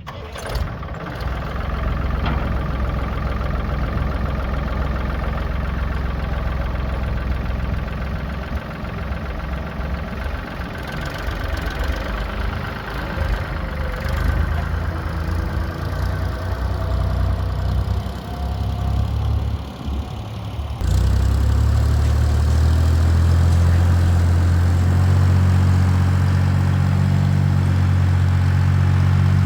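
Fiat farm tractor's engine running as it drags a grading blade over a dirt road, its pitch wavering. About two-thirds of the way through, the sound switches abruptly to a louder, steadier engine drone.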